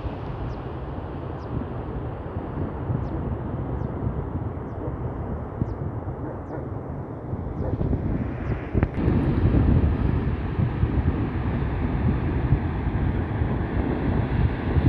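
Wind buffeting the microphone outdoors: a steady low rumbling noise that grows louder about eight seconds in.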